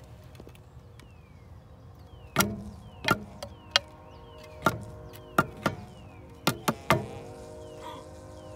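A wooden staff is tapped by hand about nine times, at uneven intervals, from a couple of seconds in, to rouse a carpenter bee boring inside it. A faint steady hum sits underneath the taps.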